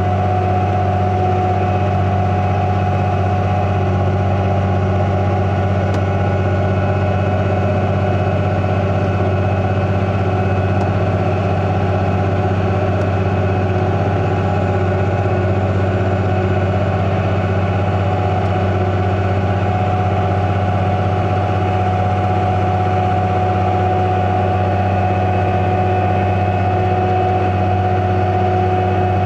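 Engine of potato-harvesting farm machinery running steadily: an even low drone with a constant higher tone over it.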